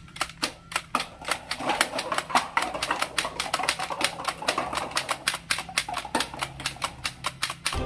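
Toy gun being fired in a rapid run of sharp mechanical clicks, about six a second and unevenly spaced.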